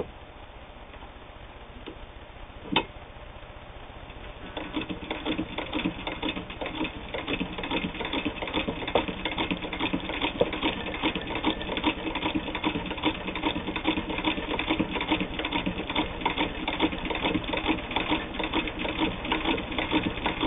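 Singer 15K all-metal sewing machine, turned by hand without a motor, stitching through heavy denim: a single click near three seconds, then from about four seconds in a fast, steady clatter of the needle and stitch mechanism.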